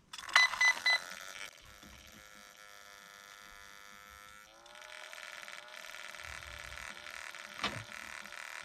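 Brushless RC car electronics powering up: a quick run of short electronic start-up beeps from the speed controller, then the steady whirr of a small cooling fan running, which has a broken fan, with a single click near the end.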